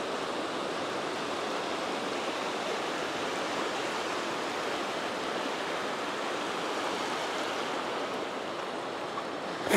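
Small surf waves washing over a shallow sandy beach, a steady even hiss.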